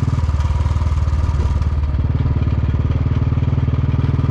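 Motorcycle engine running steadily, heard on board while riding a gravel road. Its note eases off about a quarter-second in and picks up again about two seconds in.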